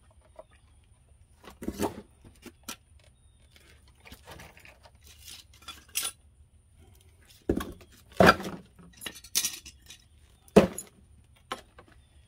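Metal tools and parts clinking and knocking as they are handled and moved about, in a string of separate clinks with a louder clatter about eight seconds in and a sharp knock about ten and a half seconds in.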